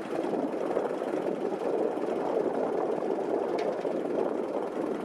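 An engine running steadily, with no change in speed.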